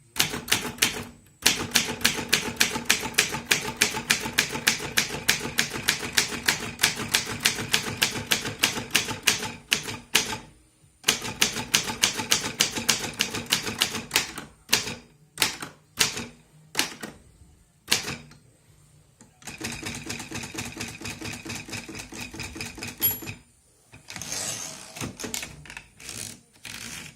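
Optima typewriter being typed on: long even runs of sharp keystrokes at about four to five a second, broken by short pauses and a few slower single strokes. Later comes a denser rattling stretch, then a brief scraping sweep near the end.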